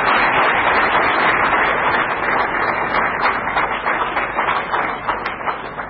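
Audience applauding, the clapping thinning out and fading over the last few seconds.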